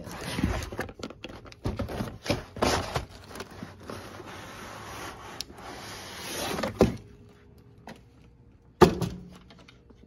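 Plastic Lasko box fan being slid out of its cardboard box: scraping and rustling of plastic against cardboard with several knocks, then one sharp thump near the end as the fan is set down.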